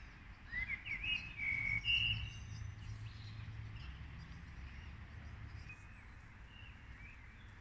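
Birds singing, a run of short chirping calls loudest in the first two seconds and then fainter and scattered, over a low steady rumble.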